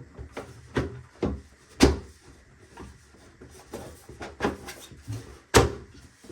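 3D-printed plastic toolbox drawer parts being handled and pushed together: a run of clicks and knocks of plastic on plastic, with the sharpest about two seconds in and another near the end.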